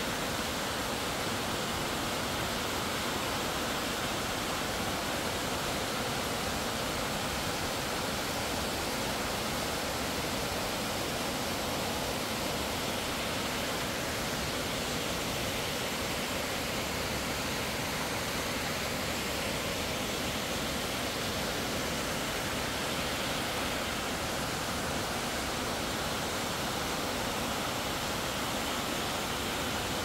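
Ssangyong Falls, a mountain waterfall, cascading down steep rock slabs: a steady, unbroken rush of falling water.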